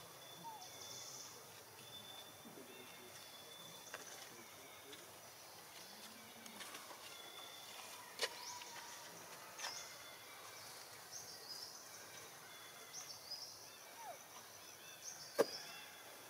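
Faint outdoor forest ambience: a quiet steady hiss with scattered short high chirps and a few sharp clicks, the loudest click near the end.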